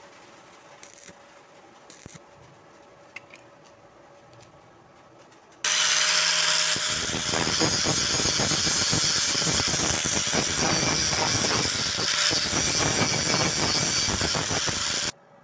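Angle grinder with an abrasive disc grinding down a weld bead on a steel angle-iron corner joint, a loud steady grinding that starts abruptly about six seconds in and cuts off suddenly near the end. Before it, only faint background with a few light clicks.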